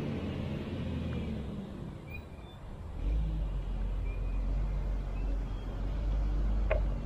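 Low, steady rumble of heavy quarry machinery working a riverside sand and gravel bar, growing louder and deeper about three seconds in.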